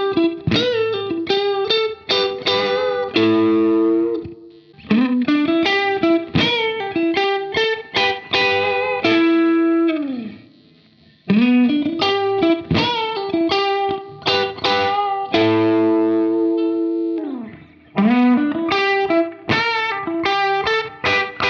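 James Tyler Japan Studio Elite HD electric guitar (HSS, Mamywo body) playing lead licks on a crunch, lightly overdriven amp tone. The same lick comes round about four times, each opening with a note bent or slid upward, running through quick single notes and ending on a sustained note.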